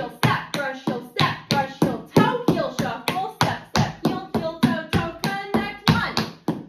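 Tap shoes striking a hard floor in a quick, steady run of taps, about four to five a second: the brushes, heel drops and shuffles of a drawback tap combination. A voice sounds along between the taps.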